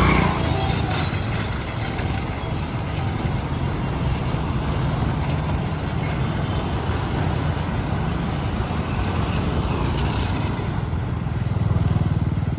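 Road traffic: a steady din of passing vehicle engines, swelling a little near the end.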